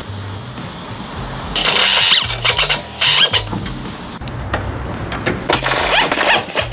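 Pneumatic impact wrench firing in three short bursts, each with a rising whine, as it spins off the shock absorber's mounting bolt and top-mount nuts.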